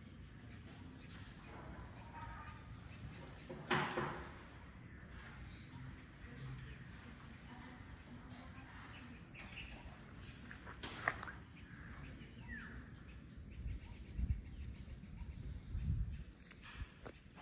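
Outdoor ambience: a steady high-pitched insect drone over a background hiss, with a few short bird calls and some low bumps near the end.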